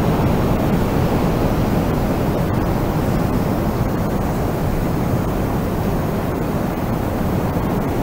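Wind blowing steadily: a deep, even rush without gusts or breaks.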